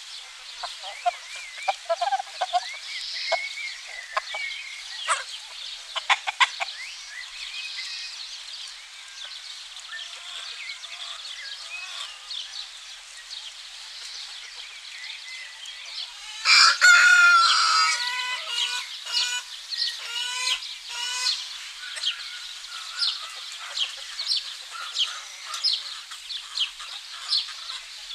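Free-range chickens clucking, with a rooster crowing loudly a little past halfway, followed by a run of shorter repeated notes. Small birds chirp faintly in the background.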